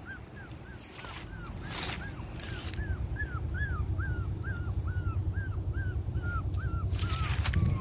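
Pomeranian puppy whimpering in short, high, arching cries, about three a second, without pause. A low rumble builds underneath from about three seconds in.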